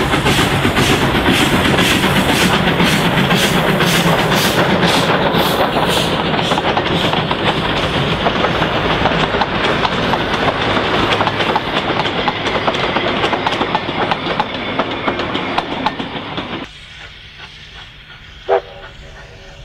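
Vulcan Foundry-built J class 2-8-0 steam locomotive passing close, its exhaust beating about three times a second, followed by wooden-bodied carriages rolling by with a steady clatter of wheels over the rail joints. Near the end the sound drops to a much quieter distant train, with one short sharp tone.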